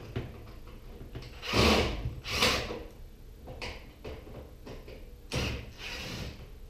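Sheet-metal parts of a gas stove being handled during a teardown: several short scrapes and knocks, the loudest about one and a half seconds in and a longer scrape around five and a half seconds in.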